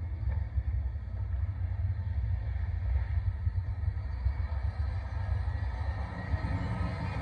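A deep, steady rumble from a film soundtrack playing on a TV.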